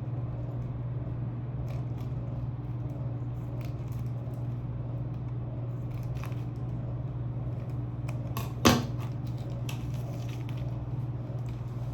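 Scissors cutting a foam squishy toy: a few faint snips and one sharp click nearly nine seconds in, over a steady low hum.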